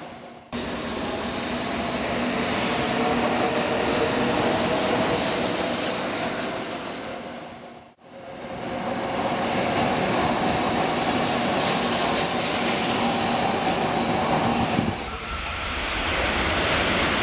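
Stadler KISS double-deck electric multiple-unit train running along the track: steady rolling rail noise with a faint hum, with wheel squeal and some clickety-clack. The sound drops out briefly about eight seconds in and shifts near the end as the clips change.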